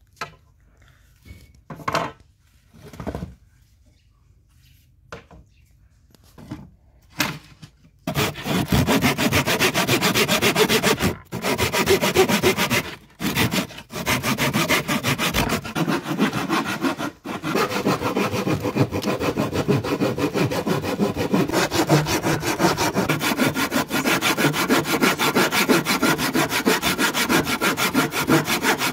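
A few scattered knocks, then, from about eight seconds in, a rusty hand saw cutting through old painted wood in fast back-and-forth strokes, with a few short pauses.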